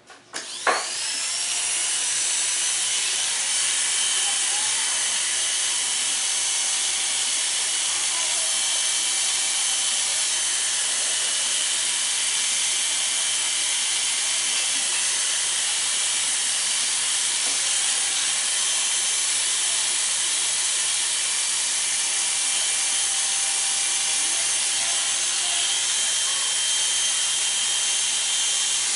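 Corded electric hair clippers switched on about half a second in, rising quickly in pitch as they come up to speed. They then buzz steadily while being run over the scalp, cutting the hair very short.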